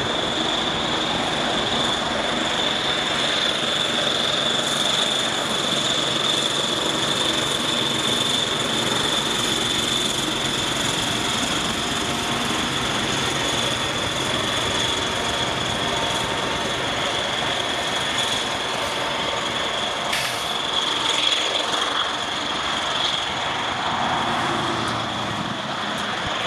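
A consist of diesel locomotives led by the ET23DM rebuild CSXT 1726 rolling past at close range: steady engine and rail noise with a high steady whine over it. A single sharp click about twenty seconds in.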